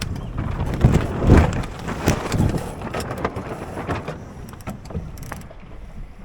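Wind buffeting the microphone aboard a Buccaneer 18 sailboat under sail, a gusty rumbling rush that swells loudest about one to two and a half seconds in, with scattered sharp clicks and knocks.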